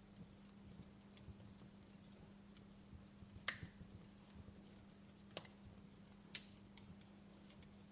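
Outdoor fire crackling softly, with scattered small ticks and three sharper pops, the loudest about three and a half seconds in and two more near the middle and past it.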